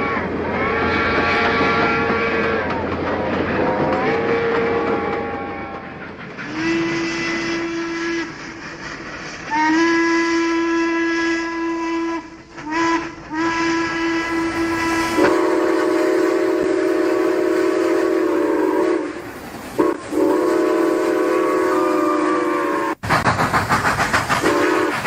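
A string of steam train whistle blasts, one after another at several different pitches, some short and some held for a few seconds. Near the end they give way to a fast, even pulsing.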